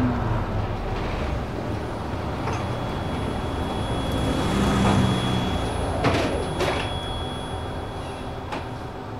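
Interior of a moving bus: a steady low engine and road rumble, with a few sharp rattles of the body or window frames about six seconds in.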